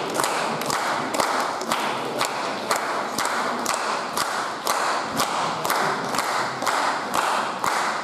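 Audience applauding in unison, clapping a steady rhythm of about two to three beats a second over a wash of general applause.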